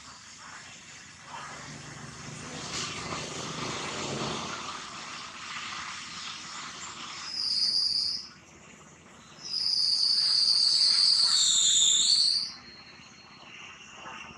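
An insect, such as a cicada, calls with a loud, steady, high buzzing tone: briefly about seven seconds in, then for about three seconds from nine and a half seconds, dropping in pitch as it stops. Before it, a softer rushing noise swells and fades.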